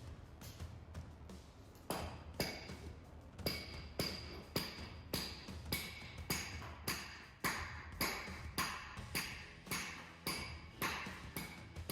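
Background music with a steady pinging, percussive beat that comes in about two seconds in, about two beats a second.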